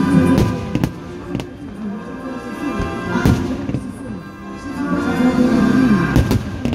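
Loud music with several sharp firework bangs scattered through it, a few close together in the first second and a louder pair near the middle and near the end.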